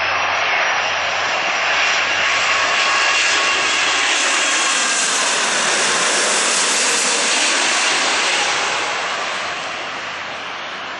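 Boeing 787 Dreamliner on landing approach passing low overhead: jet engine noise with a faint whine in it swells, is loudest mid-way, and eases off as the plane moves away.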